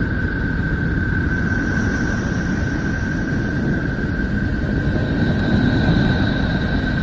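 The 'sound of Neptune', a space-sound recording made from spacecraft radio data converted to audio: a steady low rumbling drone with a constant whistle-like tone held above it, and fainter higher tones coming in partway through.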